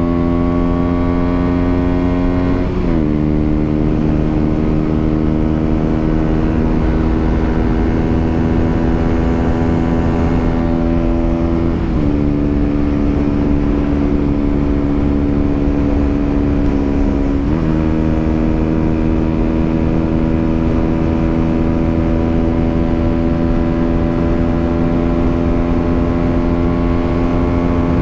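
KTM Duke 125's single-cylinder four-stroke engine running under way, its pitch holding steady or creeping slowly up, then dropping suddenly three times (about three, twelve and seventeen seconds in) as the rider shifts up a gear. A low steady rumble runs beneath.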